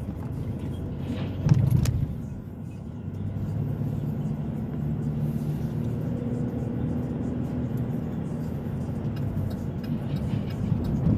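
Car driving, heard from inside the cabin: a steady low engine and road rumble, with a brief louder thump about a second and a half in.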